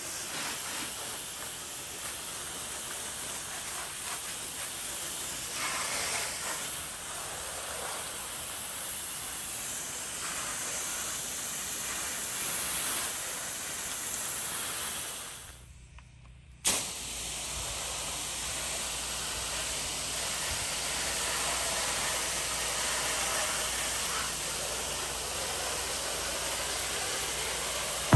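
Steady hissing spray of water from a house-washing wand. The spray cuts out for about a second just past the halfway point, then starts again abruptly with a low steady hum underneath.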